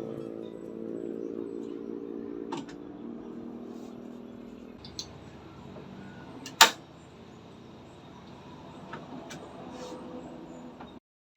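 Guitar music fading out over the first few seconds, then a few light knocks and one sharp click a little past the middle.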